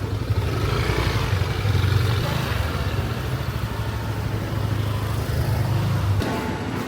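Road vehicle running: a steady low engine rumble with traffic noise, cutting off suddenly about six seconds in.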